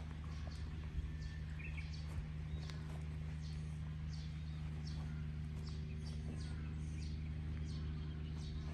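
Small birds chirping, short high falling calls repeated about twice a second, over a steady low hum.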